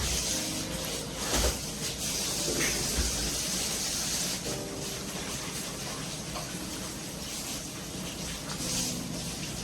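Steady rushing hiss of outdoor background noise, with a couple of low thumps about one and a half and three seconds in.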